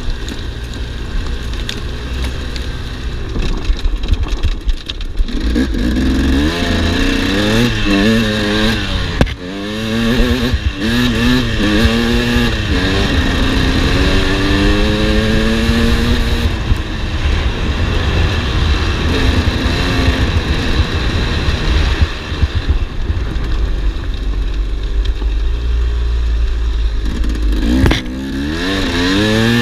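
2008 KTM 300 EXC single-cylinder two-stroke enduro engine under way, the revs repeatedly rising and falling as the rider works the throttle and gears.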